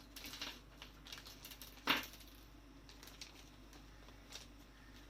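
Light clicks and plastic handling noises of a zip-lock bag of electronic components being opened and handled, with one louder knock about two seconds in, then a few faint ticks.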